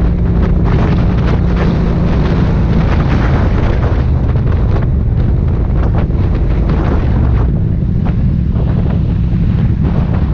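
Heavy wind noise on a helmet-mounted action camera's microphone at riding speed, over the steady low drone of an Aprilia Dorsoduro 750's V-twin engine with Akrapovic exhaust. The wind noise eases a little in the second half.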